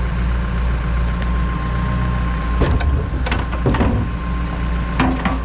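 Tractor engine running steadily, with a few short metallic knocks and clanks over it, from the hitched muck spreader.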